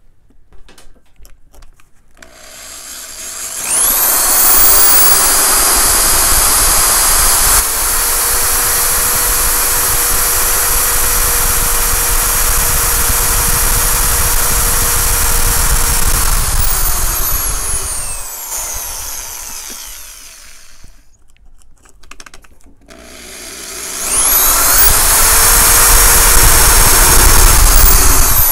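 Electric drill with a hole saw cutting into a plywood plate. The motor whines up to speed about two seconds in, runs steadily while cutting, and winds down after about sixteen seconds. It spins up again a few seconds later and keeps cutting.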